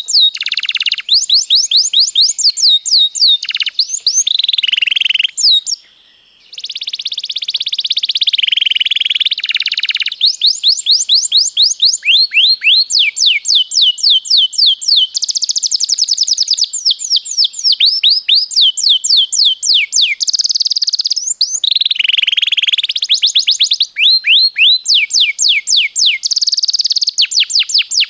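Domestic canary singing on and on: long rolling trills of very fast repeated notes, alternating with runs of quick down-sweeping whistled notes, with a brief pause about six seconds in.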